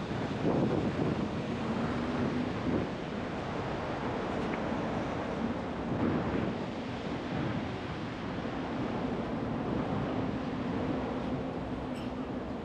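Steady rushing noise of a city street, with wind buffeting the microphone.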